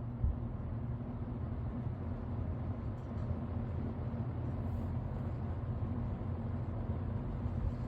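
Vintage 20-inch Kmart box fan, basically a Lakewood P23, running steadily on low speed: an even motor hum under the rush of air from its wide blades, pretty quiet.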